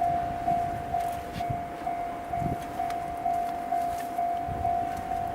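Japanese railway level-crossing warning bell ringing in a steady, even repeat of about two strokes a second, the signal that a train is approaching.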